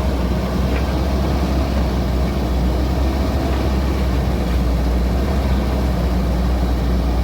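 Excavator's diesel engine running steadily, a continuous low-pitched drone.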